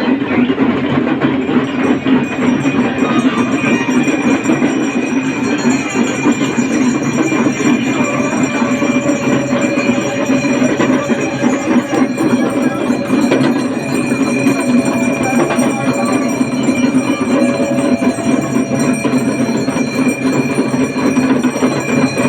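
Many damru drums rattled together in a fast, unbroken roll, with a few steady ringing tones sounding above them.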